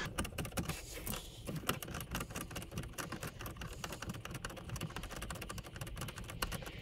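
Ratchet wrench clicking rapidly and unevenly as it backs 10 mm nuts off the battery-area power and ground posts.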